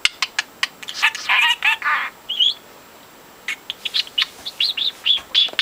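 Budgerigar chattering. It starts with a run of quick clicks and warbled notes, pauses briefly about halfway, then gives a rapid string of short chirps.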